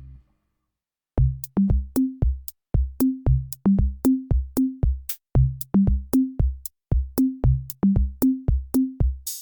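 Electronic background music: after a moment of silence, a drum-machine beat of low, pitched bass-drum hits and crisp clicks starts about a second in, with more synth parts joining near the end.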